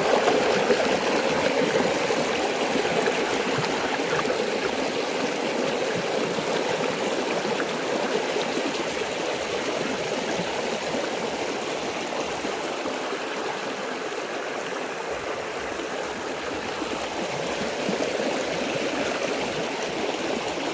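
Flowing water running steadily, like a stream.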